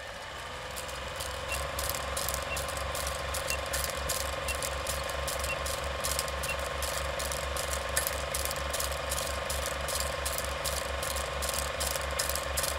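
Old film projector sound effect: a steady mechanical clatter of about three to four clicks a second over a faint steady hum.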